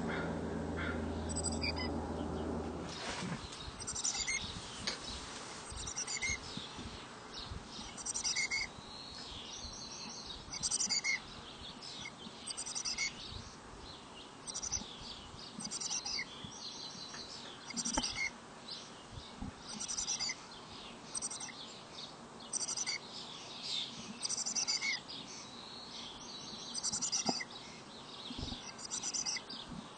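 Black-capped chickadees calling around the nest box: short bursts of high, thin chirping notes repeated every second or so, some with a lower note beneath. A low steady hum cuts off about three seconds in.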